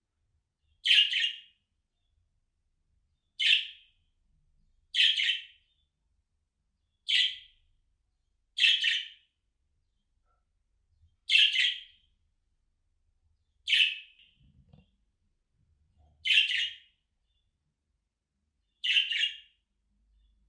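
Budgerigar giving short, separate contact calls, about nine in all, one every two to three seconds. These are the calling-type calls that draw the attention of other budgies.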